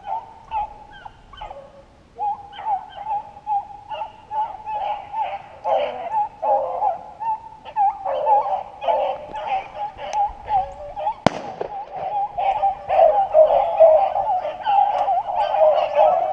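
A pack of rabbit hounds baying on the trail, a steady run of short repeated bawls that grows fuller and louder near the end. A single sharp gunshot cracks about eleven seconds in.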